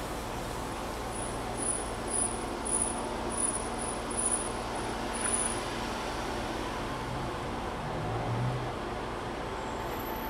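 Steady road traffic noise, with a run of short, very high-pitched chirps in the first half.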